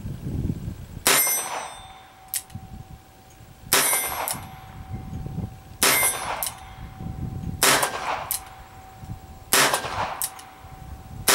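A Colt Officer's Model revolver in .22 Long Rifle fired shot by shot, a string of sharp cracks about two seconds apart. Each shot is followed about half a second later by a fainter, sharper tick, with a faint lingering ring between the shots.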